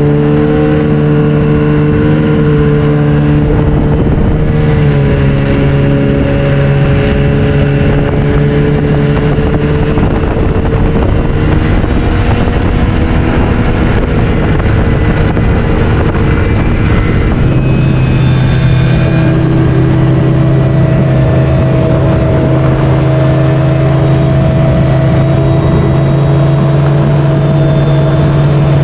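A vehicle engine running steadily under way, heard close up. Its note holds even, then shifts about five seconds in and again around seventeen seconds as the engine speed changes.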